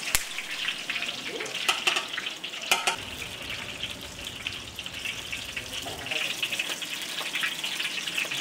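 Rice-flour chakali frying in hot oil in a large iron kadai: a steady sizzle and crackle as strands of dough are pressed into the oil. A few sharp knocks come in the first three seconds.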